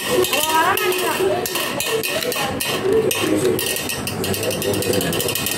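A Beyblade spinning top spinning inside a stainless steel plate, its edge scraping and rattling against the metal in a fast, continuous clatter.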